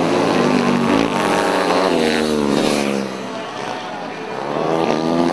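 Motorcycle engine revving, its pitch falling away over the first few seconds, then rising again near the end.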